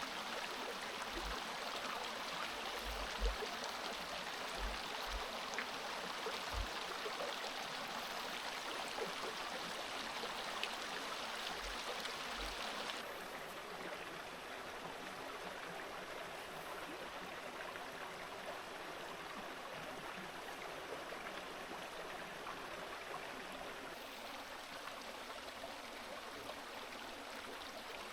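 River water flowing steadily, a constant rushing with a few dull low thumps in the first half. The rushing becomes a little quieter and duller about halfway through.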